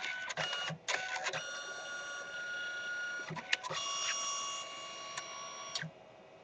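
Canon Selphy CP760 dye-sublimation photo printer running: a few clicks, then a steady motor whine in two stretches with a short burst of clicks between them, and the whine stops suddenly near the end.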